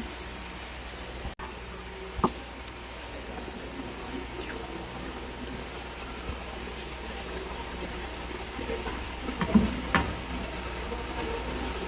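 Egg frying in a pan, a steady sizzle, with a couple of brief clicks about two seconds in and again near the end.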